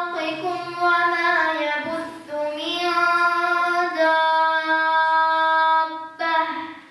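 A young boy chanting a sura of the Quran in Arabic, a melodic recitation with drawn-out notes. He takes a short break about two seconds in, holds one long steady note from about four to six seconds, and trails off just before the end.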